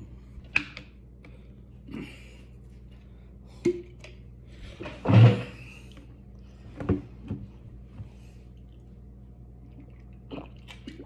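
A few scattered knocks and thumps of things being handled and set down on a table, the loudest about five seconds in, over a faint steady low hum.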